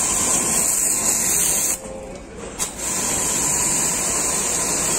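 High-pressure fine water spray hissing steadily from the nozzle of a freshly repaired AC service pump. It cuts out for about a second partway through, then starts again with a short click.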